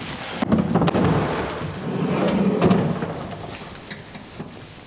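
Pull-out trash-can cabinet drawer rolling along its runners: a few clicks about half a second in, then a rumbling slide that fades away.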